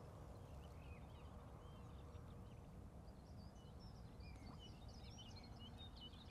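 Faint outdoor ambience of small birds singing, scattered chirps and twitters that grow busier about halfway through, over a low steady background rumble.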